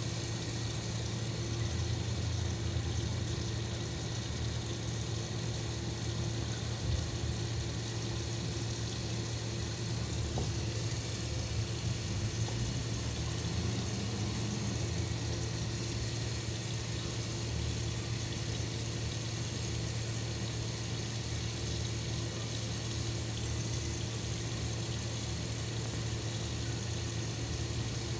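Water running steadily, with a low hum and a faint steady tone under the hiss.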